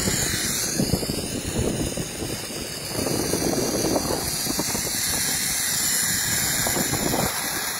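Zipline ride: wind rushing and buffeting over the phone's microphone, mixed with the trolley's pulleys running along the steel cable in a steady rumble.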